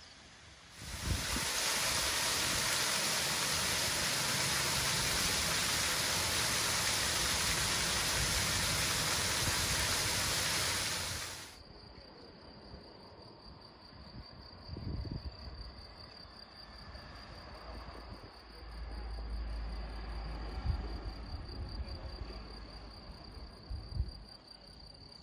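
A loud, even rushing hiss cuts in about a second in and cuts off abruptly after about ten seconds. Then insects chirr with a steady, high, shrill trill, with a low rumble for a few seconds later on.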